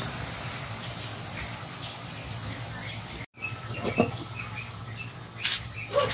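A metal wok lid knocks once against the wok about four seconds in as it is lifted off, then scrapes briefly near the end, with small birds chirping in the background. Before that, a steady low hum.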